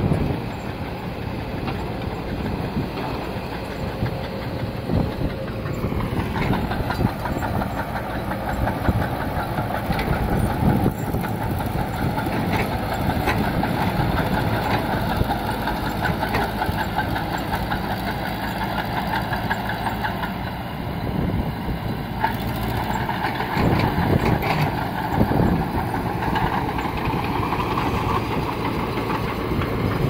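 Heavy-machinery diesel engines running under load as a Caterpillar E120B hydraulic excavator digs and a small crawler bulldozer pushes soil, with clanks and knocks from the tracks, bucket and rock. The engine revs up about six seconds in.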